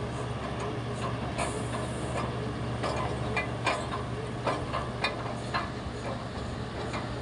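Engine of a DEW 2000 water well drilling rig running with a steady low hum. Scattered sharp metallic knocks and clinks come in irregularly, mostly in the second half.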